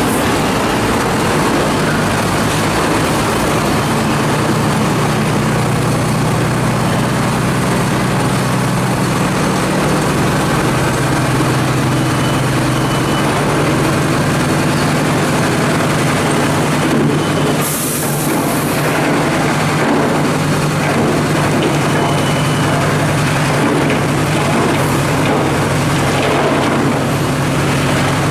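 Sinotruk HOWO dump truck's diesel engine running steadily at raised revs, driving the hydraulic pump as the ram lifts the loaded tipper bed. A short burst of air hiss about eighteen seconds in.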